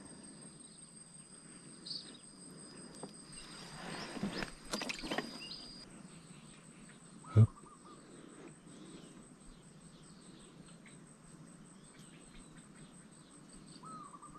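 Quiet riverside ambience of insects keeping up a steady high-pitched trill. There is some rustling of handling in the first few seconds and a single sharp knock about seven seconds in.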